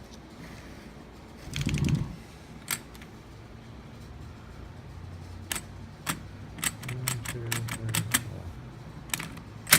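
Push buttons on the keypad of a Schlage KN150 electronic lock clicking as a code is keyed in: about ten sharp single clicks, closer together near the end. A short rattling clatter comes about two seconds in.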